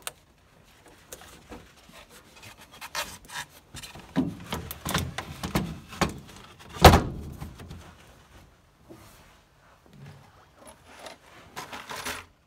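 Wooden floorboards of a Ford Model A being fitted into place around the shift lever and pedals: a string of irregular knocks, scrapes and rubs, with one loud thunk about seven seconds in.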